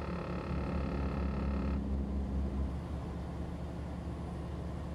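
Low, steady drone of a Freightliner Cascadia truck heard from inside the cab while driving, with a steady electronic warning tone from the dashboard lasting about two seconds near the start.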